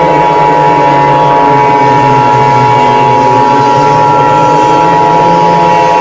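A steady, unbroken high-pitched electronic alert tone held over a loud, low droning hum, as in a simulated Emergency Alert System broadcast.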